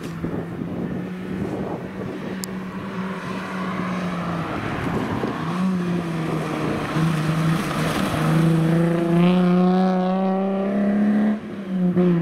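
Alfa Romeo GTV rally car's engine running as it comes down to a hairpin, then revving up with a rising pitch as it accelerates out of the corner, with a short dip in revs near the end at a gear change.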